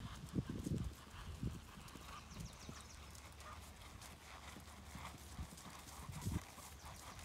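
Hoofbeats of a ridden horse walking on grass and dirt: soft, dull thuds, loudest in the first second.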